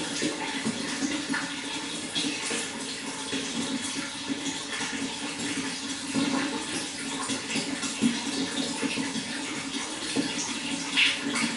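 Water flowing steadily, a continuous rushing noise with small irregular splashes.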